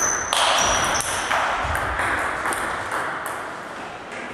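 Table tennis ball clicking off bats and table, a few scattered hits as a rally ends, with a brief high ringing tone near the start.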